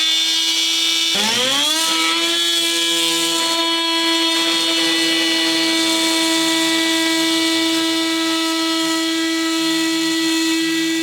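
Festool Vecturo OSC 18 cordless oscillating multitool, fitted with a circular blade and depth-stop shoe, cutting through drywall. Its motor dips and spins back up about a second in, then runs at one steady high pitch.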